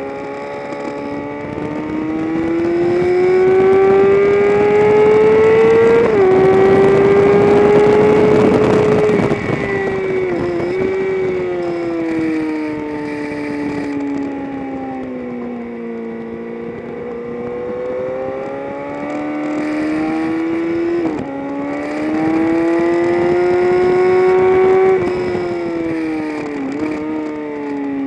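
Vehicle engine recorded onboard while lapping a race track. The revs climb under acceleration, drop sharply at an upshift about six seconds in and climb again, then fall away under braking with downshift blips. The same climb, upshift and fall repeat in the second half. Wind rush rises at top speed.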